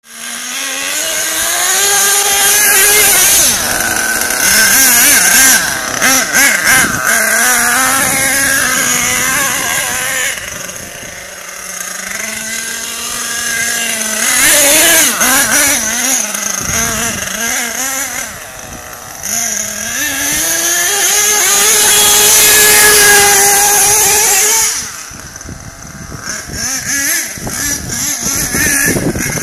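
A nitro RC monster truck's small two-stroke glow engine revving up and easing off again and again as the truck is driven, its high pitch rising and falling. Twice the engine sound drops away for a second or two before it revs back up.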